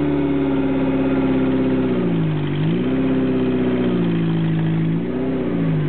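Suzuki Samurai off-roader's engine revving hard under load, held at high revs with the pitch sagging and climbing back twice, about two and a half seconds apart.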